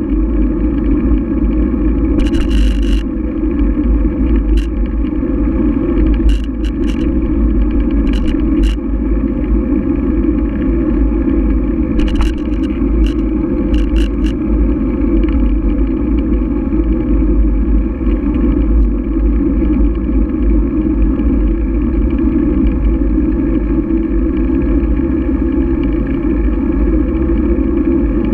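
Steady rumble of wind and tyre noise on a bicycle-mounted GoPro rolling over asphalt, with a few short rattling clicks along the way.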